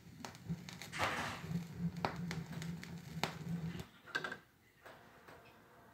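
Vinyl record surface noise over the speakers once the music has ended: scattered clicks and pops from the stylus in the groove over a low rumble. The rumble cuts off about four seconds in, leaving only faint ticks.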